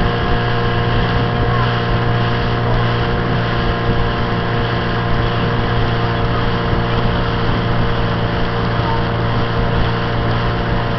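Engine of a small motor launch running steadily at an even, unchanging pitch.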